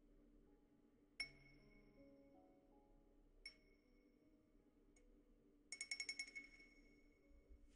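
A small wind-chime cup being struck, ringing with a clear high tone each time. There are two single strikes, about a second in and halfway through, then a quick run of about eight strikes around six seconds in, all ringing at the same pitch.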